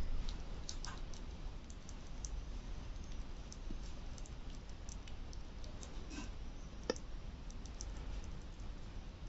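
Pet rat licking and nibbling soft food off a metal spoon: quick, irregular little clicks and smacks, with one sharper click about seven seconds in.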